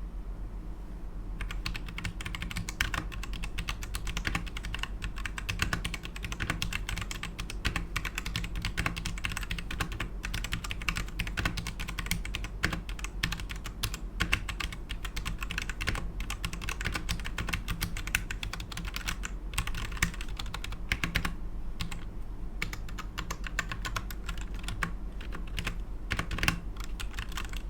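Royal Kludge RK71 mechanical keyboard with tactile brown switches being typed on steadily and fast, a dense run of key clicks that starts about a second in, with a couple of brief pauses.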